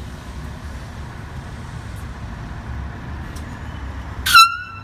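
Steady street traffic hum, then about four seconds in a short, very loud blast from a handheld air horn, a single bright tone lasting about half a second.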